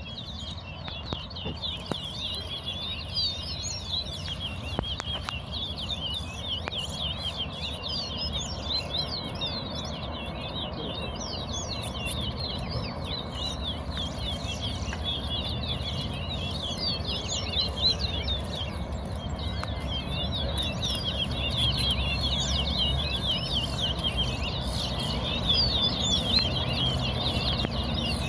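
Caged towa-towa finches singing quick, continuous chirping and trilling songs, over a steady low background rumble.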